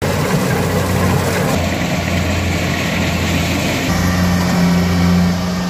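A vehicle engine running steadily at an even, idle-like speed, a constant low hum that grows a little stronger about four seconds in.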